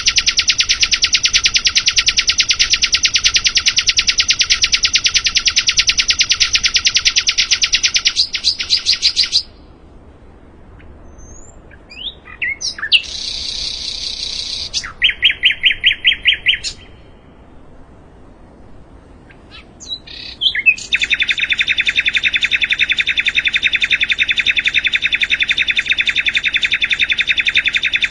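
A sikatan londo, a songbird kept for song, singing. Its long, very fast trill of rapidly repeated notes stops abruptly about nine seconds in. After a pause come short chirps, a buzzy phrase and a quick run of about ten loud notes, then a second long fast trill starts a few seconds before the end.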